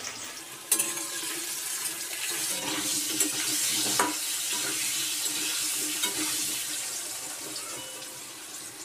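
Potato chunks sizzling in hot oil in a metal kadai, with a steady hiss, while a spatula stirs them and knocks against the pan, once sharply about four seconds in.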